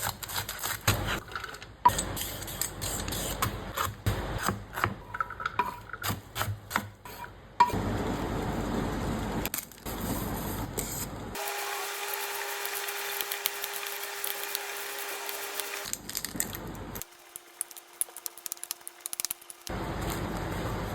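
Kitchen food-preparation sounds cut together: irregular scraping, tapping and knocking at first, then stretches of steady hiss, one of them with a steady hum.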